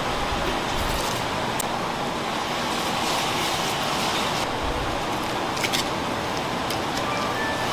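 Steady rushing background noise, with a few light clicks and taps from knife work on a large fish.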